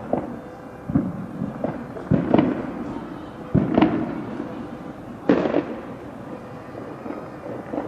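Fireworks going off at irregular intervals: about eight sharp bangs, each followed by a short echo.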